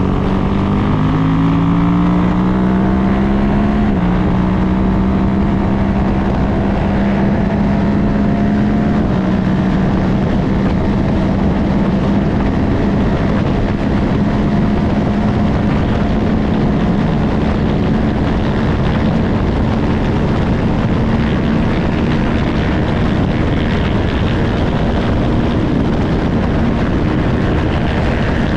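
Racing motorcycle engine at full throttle, heard from an onboard camera: its pitch climbs over the first few seconds, then holds steady at high revs at speed, with heavy wind and road rush.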